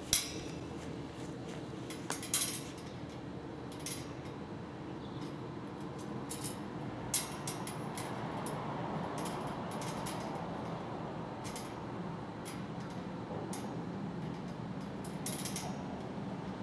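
Light metallic clinks and taps, a handful of them at uneven intervals, as metal cross-brace rods and screws are fitted by hand onto a tubular metal wardrobe frame, over a steady background hiss.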